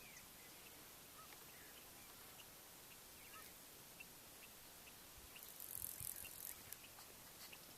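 Near silence with faint, scattered short bird chirps. A soft brief noise swells about six seconds in.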